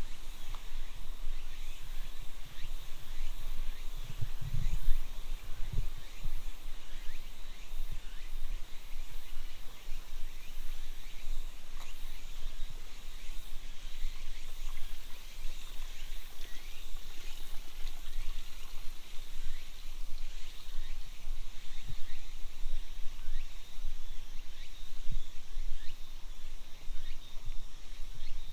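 Outdoor ambience among trees: a steady high insect hum with many short chirps scattered through it, and a few low thumps, most of them in the first several seconds.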